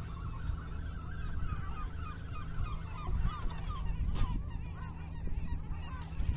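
A flock of gulls calling, many short overlapping cries one over another, over a steady low rumble.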